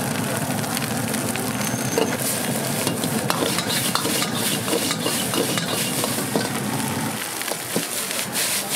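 Fried rice sizzling in a wok while a metal ladle stirs it, scraping and knocking against the wok in quick, irregular strokes. A low rumble under the sizzle drops away about seven seconds in.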